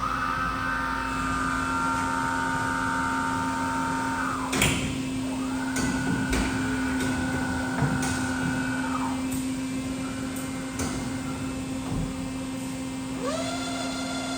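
Doosan DBC 130 horizontal boring and milling machine running under power. A steady hum runs under a higher whine from its drives; the whine runs for about four seconds, stops with a loud clunk, comes back for about four seconds, and starts again near the end at a different pitch. Several sharp knocks and clicks come in between.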